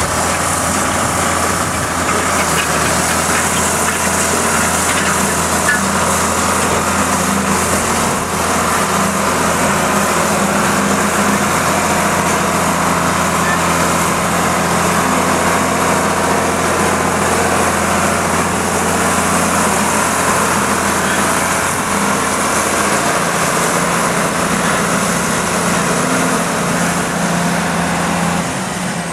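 John Deere 8440 tractor's turbocharged six-cylinder diesel running steadily while pulling a disc harrow.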